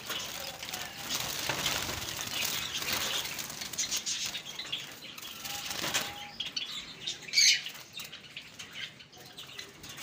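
Java sparrows flapping their wings as they fly about inside a wire cage while a hand reaches in among them, with a few short chirps. A brief louder sound stands out about seven and a half seconds in.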